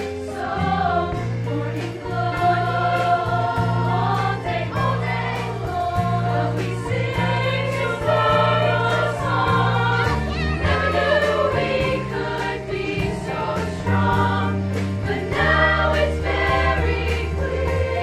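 An all-female high-school show choir singing in harmony, many voices together, over an instrumental accompaniment whose held bass notes change every few seconds.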